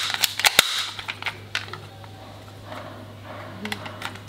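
Plastic toy pistol clicking as it is handled: a quick run of sharp, light plastic clicks in the first second and a half, then quieter handling with a few small clicks near the end.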